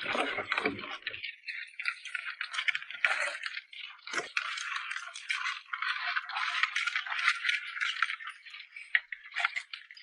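Many live crabs clattering and scrabbling against one another and the container as they are handled and sorted: a dense, continuous rattle of small clicks from their shells and legs.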